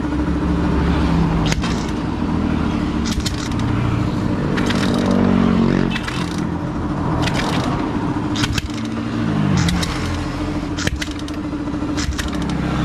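Suzuki Smash 115 motorcycle's single-cylinder four-stroke engine, freshly fitted with a 57 mm big-bore cylinder block, running and revved up and back down twice, with scattered sharp clicks.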